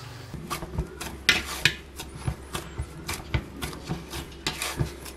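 Maida dough being kneaded by hand in a stainless steel bowl. Irregular rubbing and scraping strokes, several a second, with soft thuds as the dough is pressed against the metal.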